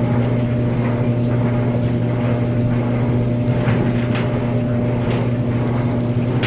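Electric hair dryer, a hot-air brush, running steadily with a motor hum and rushing air, with a few brief rustles as it is moved through the hair.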